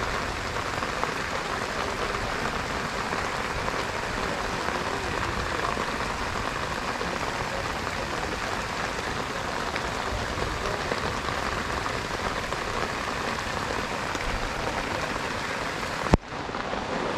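Steady rain falling, an even, dense patter. A single sharp click comes near the end.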